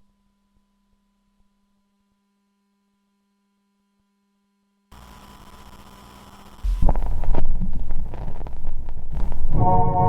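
A gap between songs: about five seconds of near silence with only a faint steady hum, then a quiet hiss fades in, turning louder with low thumps a couple of seconds later. Near the end, sustained organ-like music notes begin.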